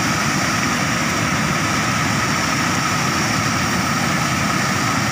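Muddy floodwater rushing and churning as it pours over a weir, a steady, loud rushing noise.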